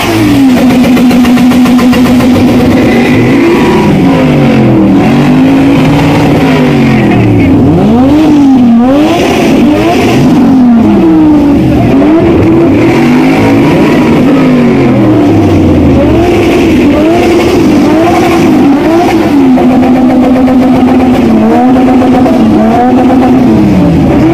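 Pickup truck's engine revved loudly over and over, each rev climbing and falling back within a second or two, with steady holds at raised revs near the start and again around twenty seconds in.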